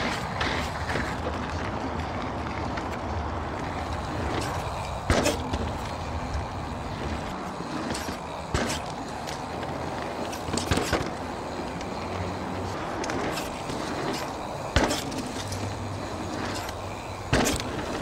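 Mountain bike rolling fast down a dirt trail: steady rolling noise with about five sharp knocks as the bike lands and hits bumps, and no metallic clanking from the Fox 38 fork fitted with an MRP Noken.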